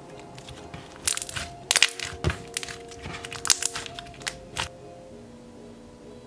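Thick glossy slime being squeezed and pressed by hand, giving a string of sharp pops and crackles, the loudest from about one to two seconds in and again around three and a half seconds. Soft background music plays underneath.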